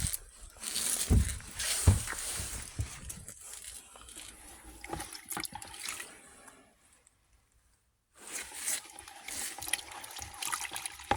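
Water trickling and splashing while a seat belt's webbing is washed, with two knocks about one and two seconds in. The sound drops out briefly a little past halfway.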